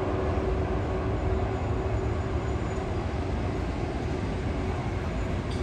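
Passenger coaches of a train rolling past, a steady rumble of wheels on the rails with a steady hum over it.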